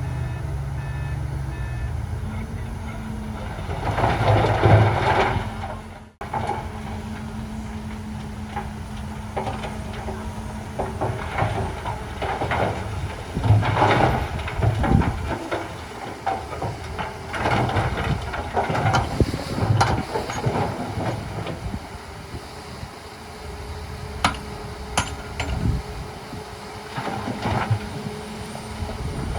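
Heavy diesel earthmoving machinery at work, its engine running with repeated surges under load. The sound breaks off abruptly about six seconds in and resumes at once.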